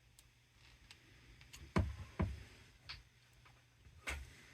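Scattered light clicks and taps of small objects being handled, with two louder knocks about two seconds in and another near the end.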